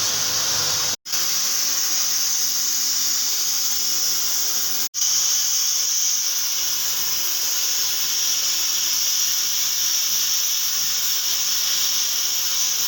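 Gas brazing torch flame burning with a steady, loud hiss, as used for brazing copper air-conditioning pipe; the hiss cuts out completely for an instant twice, about a second in and again near five seconds.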